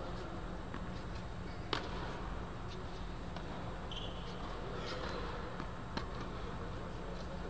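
Tennis rally: sharp pops of a racket hitting the ball, the loudest about two seconds in and another about six seconds in, with fainter knocks between, over a steady low hum.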